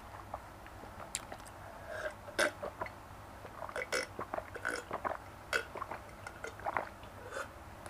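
Close-up mouth sounds of drinking: licking of fingers, then gulping from a glass mug. They come as a run of short wet smacks and swallows.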